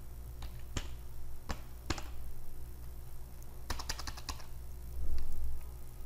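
Slow computer keyboard typing: single key clicks spaced about half a second apart, then a quick flurry of keystrokes about four seconds in, over a steady low hum. A low bump about five seconds in is the loudest sound.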